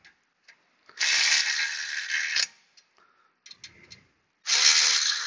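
Ratchet wrench clicking rapidly in two runs, the first about a second and a half long and the second starting near the end, as brake caliper bolts are run in; a few light tool clicks come before it.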